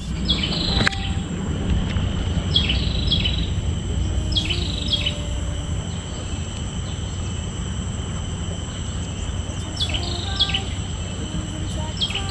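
Birds calling: pairs of short, falling whistles repeated in little bursts every second or two, over a steady high insect hum and a low rumble.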